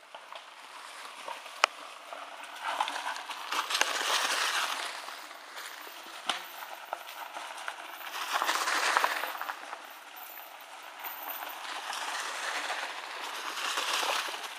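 Mountain bikes rolling past one after another over dry leaves and dirt: tyres crunching and hissing through the leaf litter, swelling three times as riders pass close, with scattered sharp clicks and rattles.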